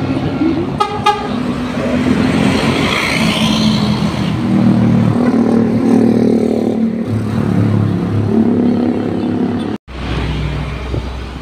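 Intercity coach bus passing close by with its engine running, sounding its horn in short blasts about a second in and then in longer tones that change pitch. The sound cuts off abruptly about ten seconds in.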